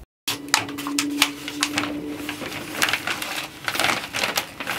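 Small plastic nursery pots clicking and knocking as they are handled, with potting mix rustling while seedlings are potted up by hand. A low steady hum runs under the first two seconds or so.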